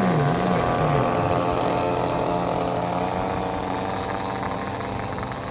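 Propeller engines of radio-controlled model airplanes in flight, several running at once at different pitches. One dips in pitch and swings back up about half a second in, and the whole sound slowly fades.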